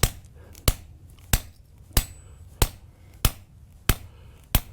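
Hammer driving a steel wedge anchor, eight sharp, evenly paced blows about one every two-thirds of a second.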